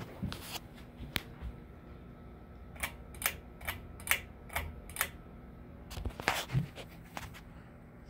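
1987 SMC F52 52-inch ceiling fan running, a low steady hum under a series of sharp clicks and ticks, about two a second through the middle and loudest near the end.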